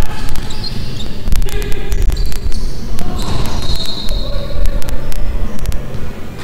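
Basketball bouncing on a hardwood gym court, a string of sharp thuds ringing in a large hall, with players' voices calling out.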